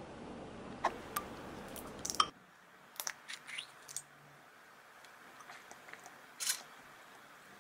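Soft clicks of a metal spoon against a ceramic soup bowl. About a second after the background hiss drops away, a few sharp clicks come as the cap of a small brown glass Bacchus bottle is pulled open. One more clink follows a few seconds later.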